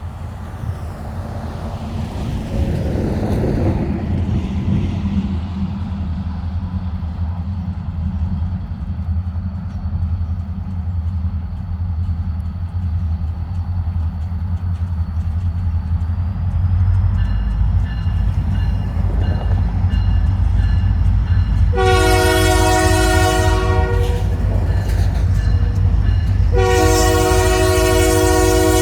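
Approaching freight train led by EMD SD40-2 diesel locomotives: a low diesel rumble builds steadily, then the locomotive's multi-note air horn blows, faintly at first and then in two loud long blasts near the end.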